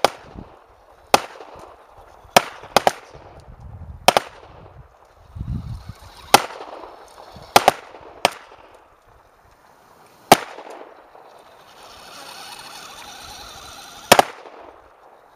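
Gunshots fired one at a time at irregular intervals, about nine sharp reports with short echoing tails. A faint steady noise sits between the last two shots.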